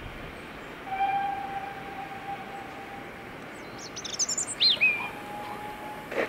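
Steam whistle of GWR 5600-class 0-6-2T tank locomotive No. 6695 blowing one steady note for about two seconds, then a shorter, quieter second blast near the end, as it signals its departure. A bird sings loudly between the two blasts, and the engine's first exhaust beats start right at the end.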